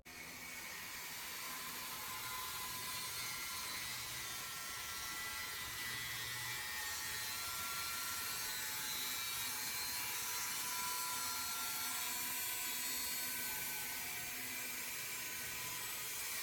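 Aerosol spray can of textured paint spraying in one long steady hiss, which starts abruptly and stops near the end.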